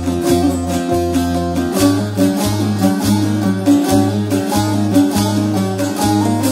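Instrumental introduction of a Turkish Alevi deyiş: a plucked bağlama (long-necked saz) plays the melody over a low bass line of evenly repeated notes.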